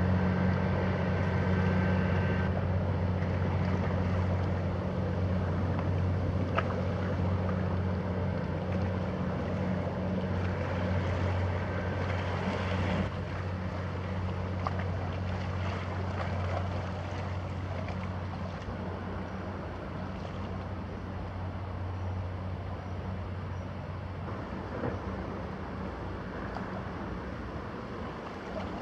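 Diesel engine of a passing inland vessel running with a steady low drone, slowly fading as the boat moves away.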